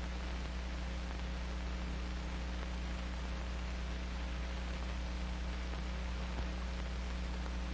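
Steady hiss with a low, even hum: the background noise of an old film soundtrack, with nothing else in it.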